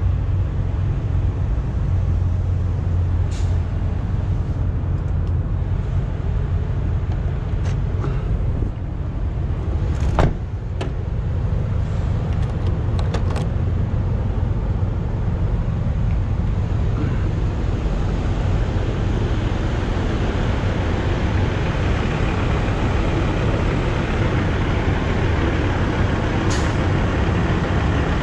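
Semi-truck diesel engines idling, a steady low rumble, with a truck door shutting with a single knock about ten seconds in.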